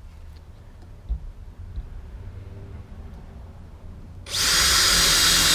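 A handheld power tool starts about four seconds in and runs steadily and loudly, cutting or sanding a plastic bracket. Before it there is only a faint low rumble and a couple of light knocks.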